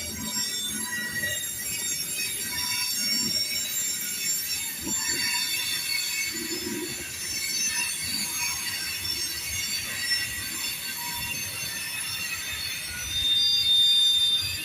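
Freight train rolling past with its steel wheels squealing on the rails, several high squeals at once over a low rumble of wheels. A louder, steady squeal sets in near the end.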